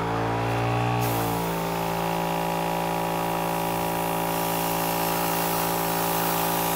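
Vogue Air 12-volt airbrush compressor running on its strongest setting with a steady electric hum. About a second in, the airbrush starts hissing as air and paint spray through it, and the hiss continues alongside the compressor.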